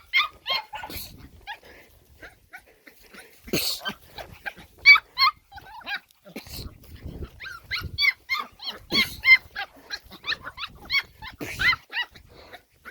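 A litter of puppies yipping and whimpering, many short high calls overlapping in bursts, with a few scuffs or thumps in between.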